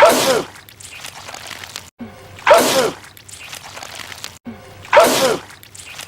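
A man sneezing three times, about two and a half seconds apart. The same sneeze repeats as a loop, each one cut in just after a brief dropout to silence.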